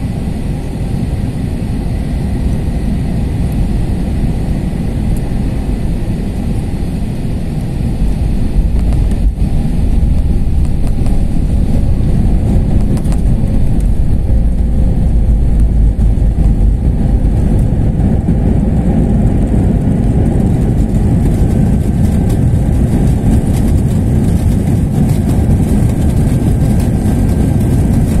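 Airbus A321 cabin noise during landing: a steady low rumble that grows louder about eight seconds in and stays loud.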